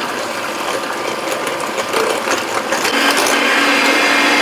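Electric hand mixer running, its beaters creaming soft margarine, sugar and eggs in a glass bowl. The motor is steady, with a slightly louder, lower hum coming in about three seconds in.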